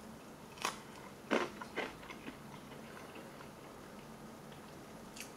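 Someone biting into and chewing a 1994 MRE cracker spread with peanut butter: a few sharp crunches in the first couple of seconds, then quiet chewing.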